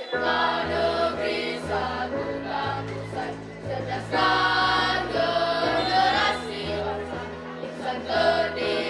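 A school vocal group of girls and boys singing together over an instrumental accompaniment with a steady bass line. The voices come in right at the start, after an instrumental intro.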